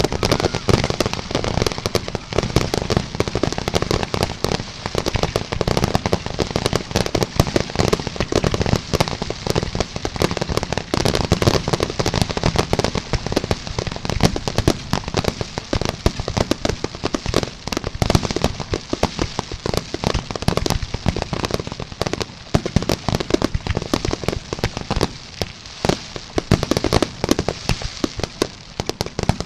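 Fireworks finale barrage: many shells bursting in rapid succession, bangs and crackles overlapping with no gaps, easing slightly near the end.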